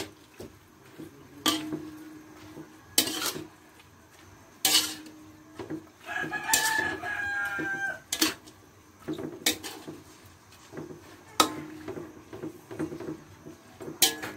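A spatula scraping and knocking against a wok as the cabbage, carrots and meat are tossed, a sharp stroke every second or two. About six seconds in, a rooster crows once for about two seconds.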